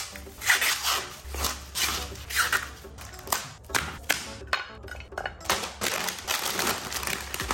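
Kitchen knife chopping corn cobs on a plastic cutting board: a run of irregular crunching knocks as the blade goes through the cob and hits the board, with plastic packaging crinkling near the end.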